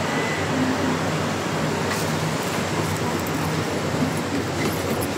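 Steady din of a busy city street: traffic noise with a faint low hum and a few light clicks.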